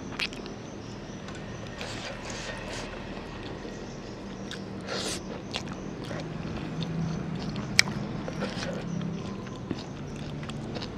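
Close-miked eating of saucy fried noodles with chicken bones: chewing and biting, with scattered wet clicks and short smacking bursts and one sharp click about eight seconds in, over a steady low hum.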